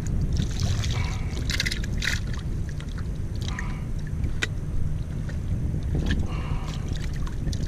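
Wind rumbling steadily on the microphone, with short splashes and knocks from a floating plastic live-bait bucket being handled at the boat's edge, including a sharp click about four and a half seconds in.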